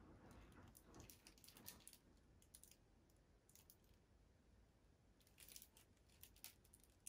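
Near silence with a scatter of faint, short clicks: buttons being pressed on a small fairy-light remote control.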